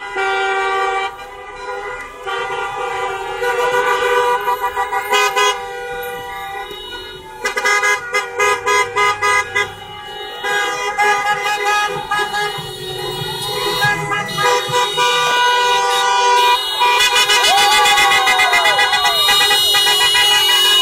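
Many car horns honking together, overlapping long and short blasts from a slow line of passing cars, with shouting voices. Near the end a louder, steadier wailing sound builds in, like an approaching siren.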